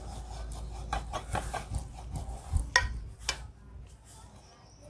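Wooden rolling pin rolling out dough on a round metal rolling board: a low rumble of the pin rolling back and forth, with several sharp clicks and knocks as it strikes the board.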